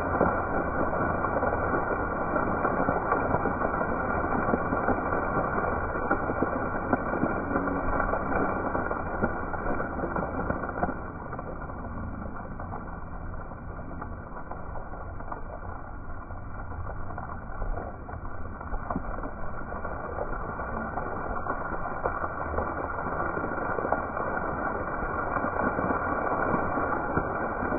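Ground-level plaza fountain jets splashing onto wet paving: a steady rushing of water that falls off for several seconds in the middle as the jets shrink, then builds again.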